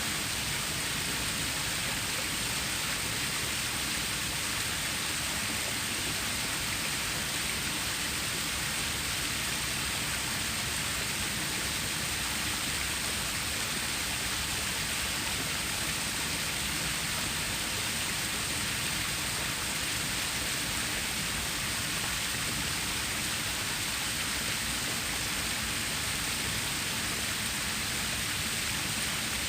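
Running water of a stream: a steady, even rush with no breaks or changes.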